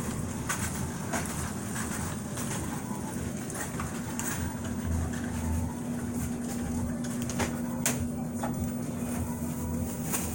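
Indoor shop background: a steady low rumble and hum, with a few sharp clicks and knocks. A steady hum tone comes in about four seconds in and holds almost to the end.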